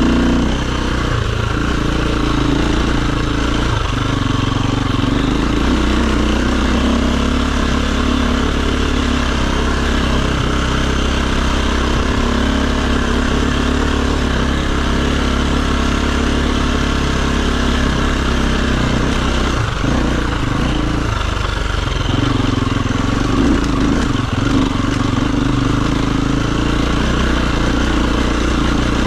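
Dirt bike engine running at fairly steady, low revs, its pitch dipping and rising slightly now and then.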